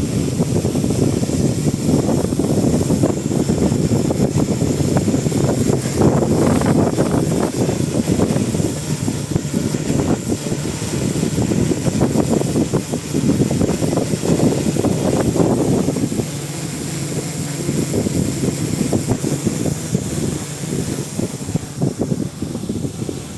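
Strong gusty wind buffeting the microphone, a low rushing noise that swells and eases with the gusts. It turns a little quieter and steadier after about 16 seconds.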